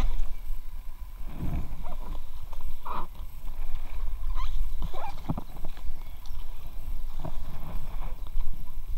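Inflatable kayak drifting on a shallow brook: scattered knocks, rubs and small water sounds from hands and body against the vinyl hull, over a steady low rumble.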